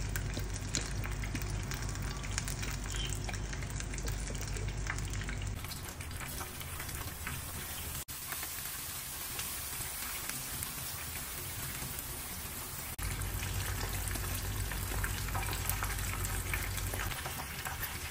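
Minced garlic frying in hot oil in a wok, a steady crackling sizzle, stirred now and then with a silicone spatula; near the end chopped onion is added to the oil and keeps frying.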